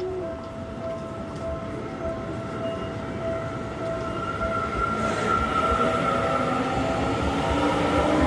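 Japanese level-crossing warning bell ringing in a steady repeated tone while a Seibu Railway electric train approaches. The train's running noise grows louder from about halfway.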